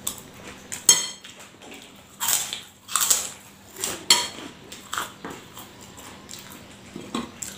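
A metal spoon clinking and scraping in a ceramic bowl in a series of short, sharp strokes, with the mouth sounds of chewing food.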